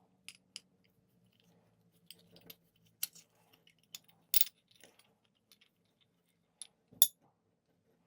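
Scattered light clicks and clinks of small metal parts being handled from a scooter's variator, the loudest about four and a half and seven seconds in.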